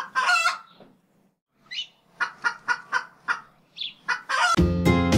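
Domestic fowl calling: a call at the start, then a run of short clucks at about four a second and a couple more calls. Music starts near the end.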